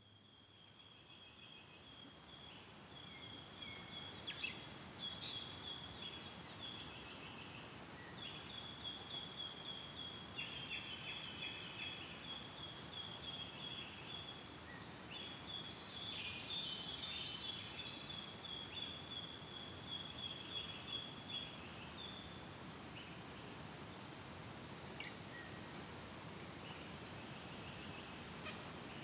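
Forest ambience: birds chirping and trilling over a steady outdoor hiss, the calls busiest in the first several seconds, with a thin high steady note that comes and goes throughout.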